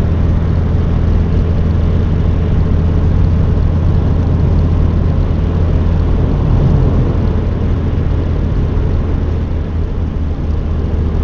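Car driving at a steady speed: a continuous low engine hum under steady road noise.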